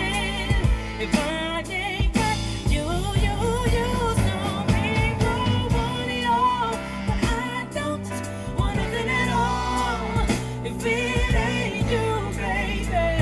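A soul-pop ballad with a sung melody over a full accompaniment, played on a competition sound-quality car audio system and heard inside the car's cabin.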